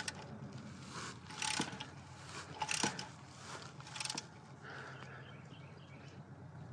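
Socket ratchet clicking in four short bursts about a second and a half apart, the pawl ratcheting on each back-swing as it runs in the oil drain plug.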